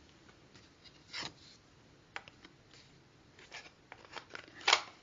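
Quiet handling sounds: scattered light clicks and rustles, with a sharper click near the end.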